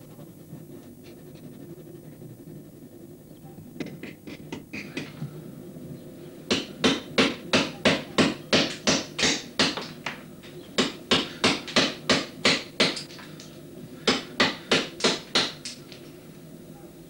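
A hand tool working wood, in runs of sharp, evenly spaced strokes about three a second. A few softer strokes come first, and there are short pauses between the runs. A steady low hum lies under it all.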